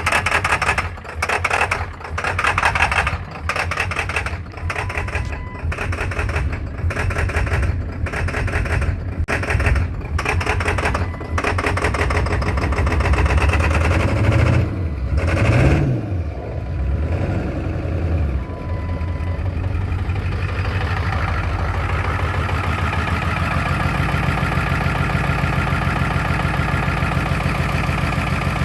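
2003 Ford F350's 7.3 Powerstroke V8 turbo-diesel running rough with a rhythmic, clattery lope, surging a little more than once a second. About halfway through it is revved up and down twice, then settles into a steadier idle. The rough running comes from a failing, corroded injector driver module leaving most injectors firing weakly.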